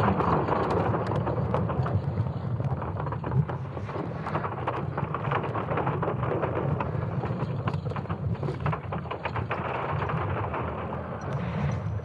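Sonified Earth's magnetic field, built from ESA Swarm satellite magnetic data: a deep, continuous rumbling with many sharp crackles over it, an eerie, scary-sounding representation of the geomagnetic field.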